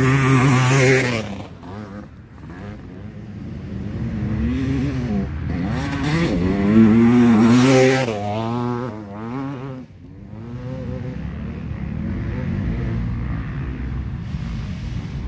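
Dirt bike engines revving hard and shifting through the gears as riders pass close, loudest near the start and again from about 6 to 8 seconds in. In the last few seconds it drops to a steadier, more distant drone.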